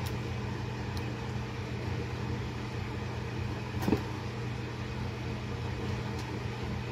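A steady low appliance hum, with a brief squelch from a plastic squeeze bottle of ketchup about four seconds in and a couple of faint clicks.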